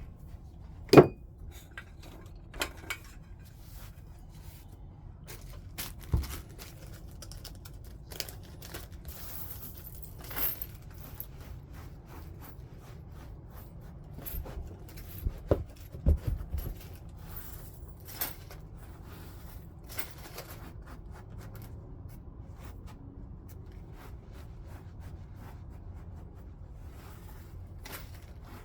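Flintknapping: sharp clicks and snaps of stone being worked as small flakes pop off the edge of a stone point, with light scraping and faint ticks between. The loudest snap comes about a second in, and a cluster of snaps falls around the middle.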